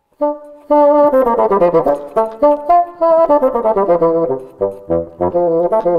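Bassoon playing a fast passage of many short, separate notes, with runs that fall in pitch, starting a moment in after a brief silence.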